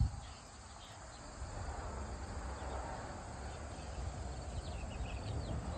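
Outdoor ambience: a steady, faint high-pitched insect trill, typical of crickets, over a low rumble.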